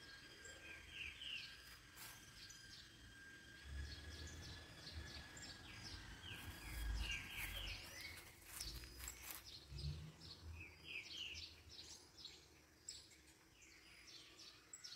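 Outdoor ambience of small birds chirping in short, repeated phrases, over a faint steady high whine that stops about halfway. A few low rumbles and a brief cluster of clicks or rustles come near the middle.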